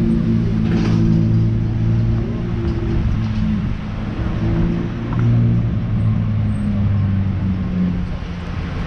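Motor vehicle engine running at low revs nearby, a steady low hum whose pitch shifts slightly, amid street traffic noise.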